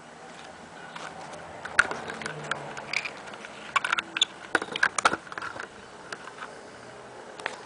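Camera handling noise: a run of sharp clicks and knocks from about two to five seconds in as the camera is shifted, over a steady outdoor hiss.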